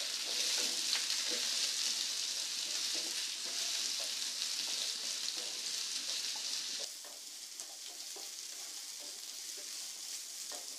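Diced pumpkin and onion sautéing in hot oil in a nonstick pan: a steady sizzle, with light scrapes and taps of a wooden spatula stirring the pieces. The sizzle drops to a quieter level about seven seconds in.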